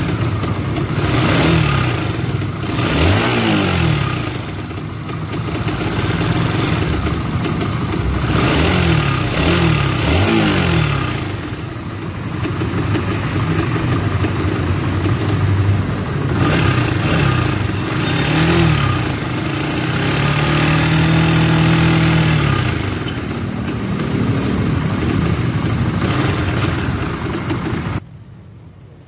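Honda Supra GTR 150's single-cylinder engine running with a very harsh, rough mechanical noise, blipped up and down several times and held at higher revs once, cutting off just before the end. The noise is typical of a worn cam chain tensioner.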